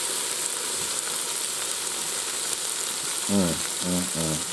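Sliced onions, green peppers and garlic sizzling steadily in oil in a Ninja Foodi's ceramic pot on sear/sauté mode. A person's voice is heard briefly near the end.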